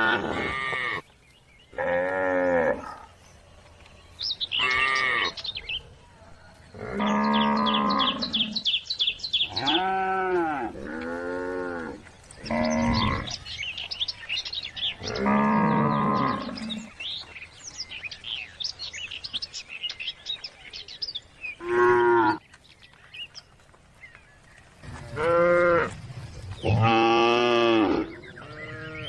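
Cattle mooing again and again, about eleven calls of half a second to a second and a half each, with a longer pause midway. Faint bird chirps can be heard between the moos.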